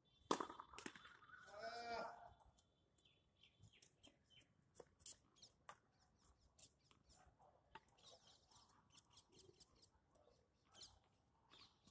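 Birds chirping in short, high, scattered calls. Just after the start there is one sharp knock of a tennis racket striking a ball, the loudest sound, and a brief pitched call about two seconds in.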